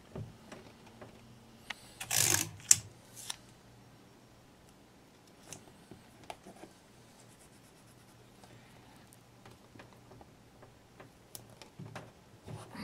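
Hands handling a large porcelain platter and pressing masking tape onto its glaze: a brief rasp about two seconds in, two sharp clicks right after, then faint scattered ticks and rubbing.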